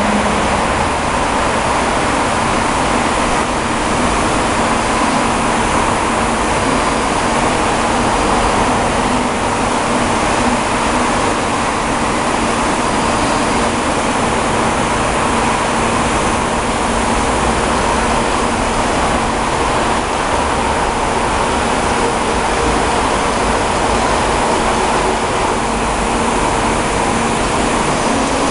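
Zayer KF3000 CNC bed mill running: a loud, steady mechanical hum and whir with a faint steady tone underneath, unchanging throughout.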